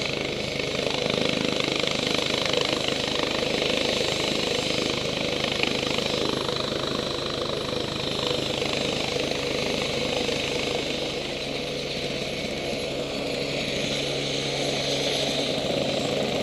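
Helicopter running on the ground: a steady turbine whine over the fast, even beat of its turning rotor.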